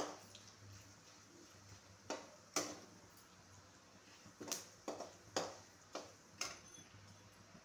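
Flat metal spatula scraping and knocking against a metal kadhai, about eight separate strokes, while stirring mustard seeds, cumin and dals frying in a little oil.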